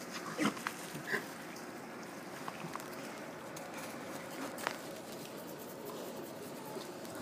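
Pigs foraging for acorns in dry fallen leaves close by, their snouts rooting through the leaf litter, with a few short louder animal sounds in the first second or so.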